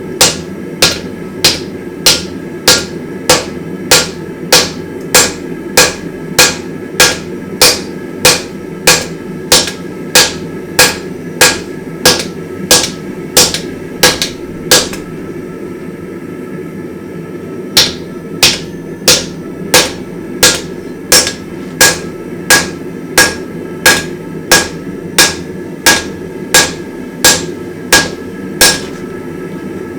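Hammer blows on a hot damascus steel billet on an anvil, drawing it out: a steady rhythm of about three ringing strikes every two seconds, with a pause of about three seconds midway before the hammering resumes.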